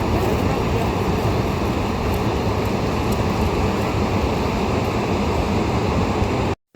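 Heavy rain falling steadily as a dense, even hiss, cutting out for a moment near the end.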